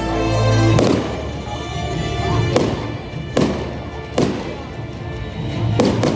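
Fireworks going off, several sharp bangs of bursting shells, over loud music playing throughout.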